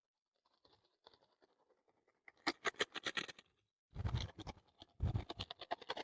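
Close scraping and scratching handling noise in three short spells of rapid clicks, starting about two seconds in.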